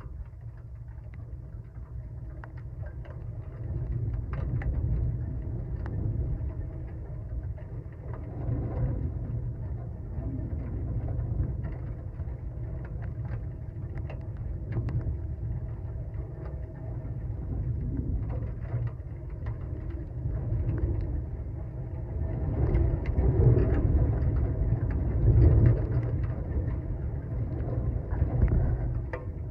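A steady low rumble, swelling louder about three quarters of the way through.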